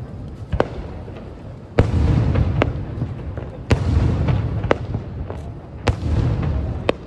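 Aerial fireworks shells bursting far off: about eight sharp booms in seven seconds, each followed by a low rolling rumble.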